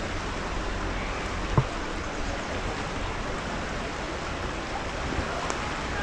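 River water flowing steadily past the bank, with a single short thump about one and a half seconds in.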